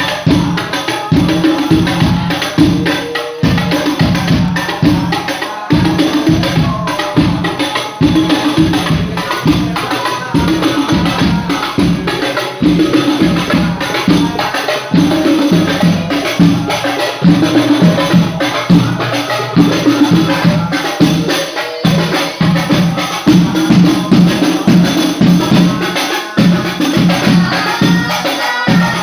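Rebana frame drums with tambourine jingles playing an instrumental sholawat rhythm, a fast, steady run of drum strokes with a few brief breaks.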